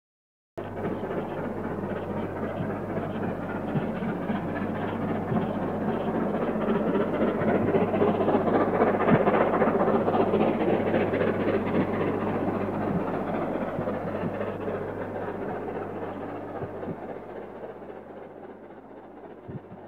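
Two NSWGR 35 class steam locomotives double-heading a train as it passes. The sound starts suddenly about half a second in, builds to its loudest about halfway through and then fades away, over a steady low hum.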